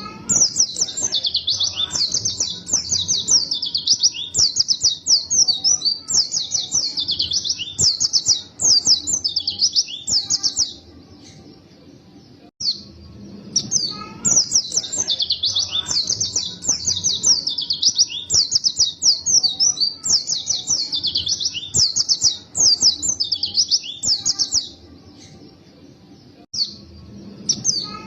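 White-eye (pleci) singing a long run of rapid, high twittering song phrases. The song breaks off twice for about two seconds, just before halfway and again near the end.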